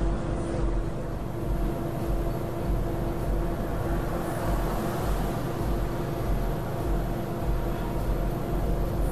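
Engine and road noise inside a truck cab cruising at highway speed, about 48 mph. It is a steady drone with a low rumble and a constant hum.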